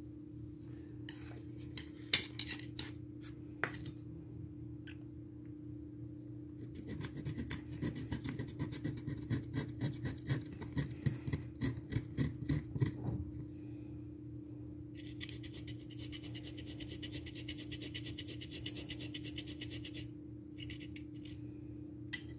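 Cassava being grated on a small metal box grater, in runs of quick rasping strokes: a first run in the middle and a faster, thinner-sounding run near the end, with a few sharp clicks of the grater early on.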